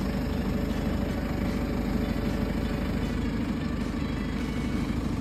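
An engine idling steadily, a low, even running sound with no change in speed.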